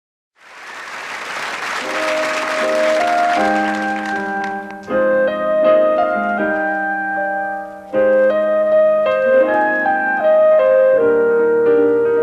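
Instrumental intro of a soft-rock ballad: a hiss swells in over the first few seconds and fades, then keyboard chords on piano and electric piano ring under a slow stepping melody.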